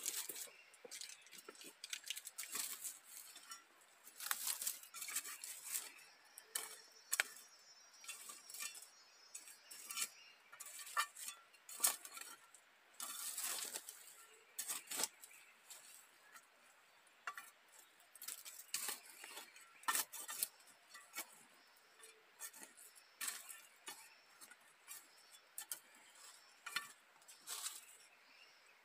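Irregular light clinks, clicks and taps of small hard objects being handled, scattered unevenly, several a second at times.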